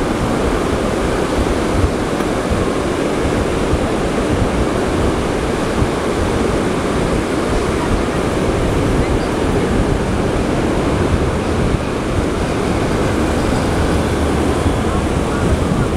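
Steady sea surf washing on a beach, with wind rumbling on the microphone.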